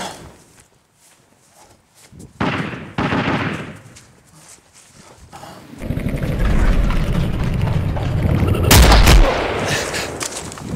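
Two short bursts of gunfire sound effect a little over two and three seconds in. Then comes several seconds of loud rustling and body movement from a body-worn camera while running over grass, ending in a heavy thump as one man tackles another to the ground.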